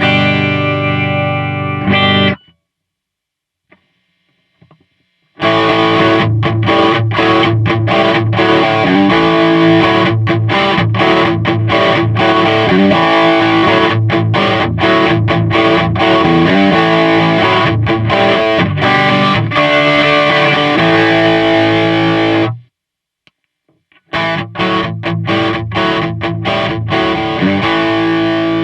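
Electric guitar played through an overdrive pedal, giving a driven, distorted tone. It plays chords and riffs with many short, choppy stops. The playing breaks off twice: for about three seconds soon after the start, and again for a moment near the end, before it resumes.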